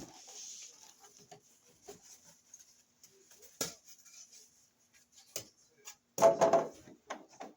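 Scattered clicks and knocks from handling the dehumidifier's cardboard box and packaging, with one louder scrape about six seconds in that lasts about half a second.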